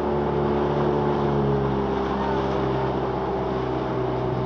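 A small boat's motor running at a steady speed: an even, unchanging drone.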